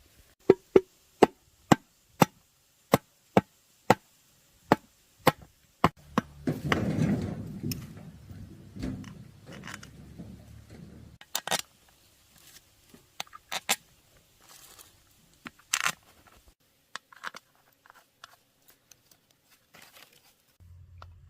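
A run of sharp knocks, about two a second for six seconds, then several seconds of scraping or rubbing, then scattered lighter clicks and taps from hand work on parts.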